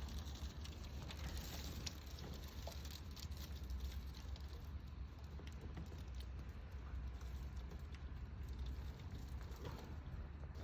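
Hail and rain pattering against a window: a dense, irregular spray of small clicks over a steady low hum.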